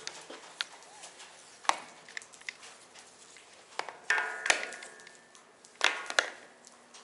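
Scattered clicks and knocks of footsteps and handling on a concrete floor, with two louder clattering bursts, each with a brief ring, about four and six seconds in.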